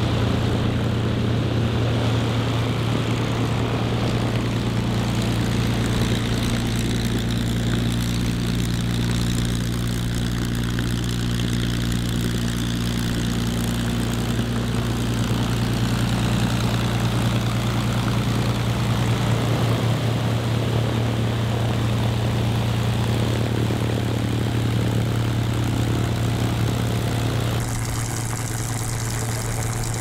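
P-51D Mustang's Packard Merlin V-1650-7 V12 engine and propeller running steadily at low power while taxiing, a deep, even drone with no revving.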